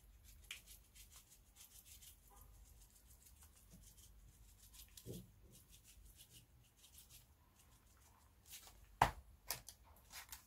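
Faint scattered light clicks and rubbing of hands sprinkling food colouring over a pan of cooked rice, with one sharper click about nine seconds in.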